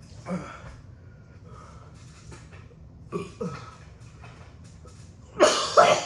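A man's short pained vocal noises and breaths, falling in pitch: one just after the start, two about three seconds in, and a louder, longer one near the end. They are his reaction to the burn of an extremely hot pepper extract in his mouth and throat.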